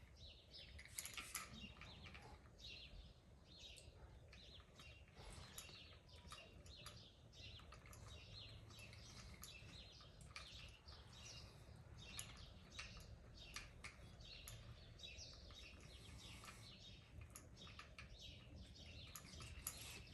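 Near silence, with faint, scattered clicks and scratchy crinkles as a spline roller and hands work the rubber spline and screen mesh into the groove of a window screen frame.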